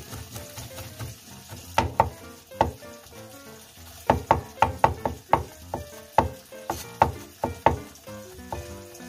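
Cleaver chopping garlic on a wooden cutting board: a few knocks, then a quick run of chops, about three a second, from about four seconds in, over soft background music.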